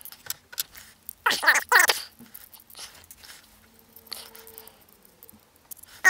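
Scattered light metallic clicks and taps of small nuts, washers and lock washers being unthreaded by hand and handled as the hardware is stripped off a battery isolator's terminal studs, with a brief muttered voice about a second in.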